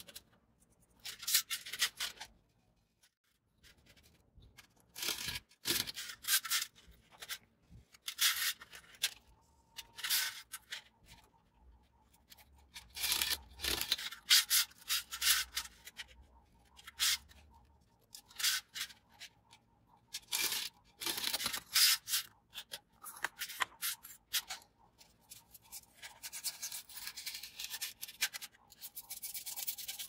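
A pen scratching lines along a steel ruler on a polystyrene foam sheet: short rubbing strokes with pauses between them. Near the end a longer, steadier scratching as a craft knife is drawn through the foam.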